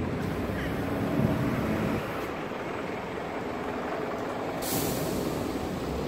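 Steady rumble of city traffic, louder for the first couple of seconds, with a short sharp hiss about three-quarters of the way through.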